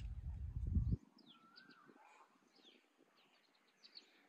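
A low rumble on the microphone for about the first second, cutting off suddenly, then birds chirping and singing in the background, with one whistled phrase that rises and falls.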